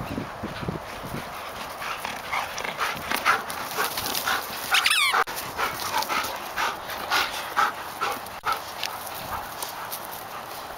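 Belgian Shepherd (Tervuren) dogs at play, giving a run of short high-pitched whines and yips, about two or three a second. A longer wavering whine comes about five seconds in.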